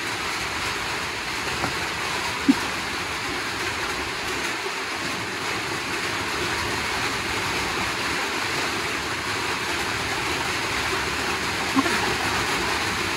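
Heavy rain falling steadily, a continuous noisy hiss. There is a light knock about two and a half seconds in and another near the end.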